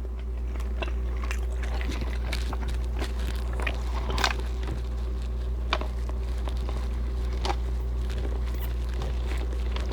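Close-miked chewing: scattered small wet clicks and crunches of a mouthful of food, over a steady low hum.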